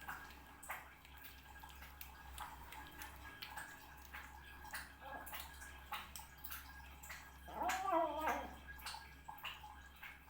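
Cat eating wet food: a run of wet smacking and chewing clicks, with one short, wavering, pitched vocal sound made while eating about eight seconds in.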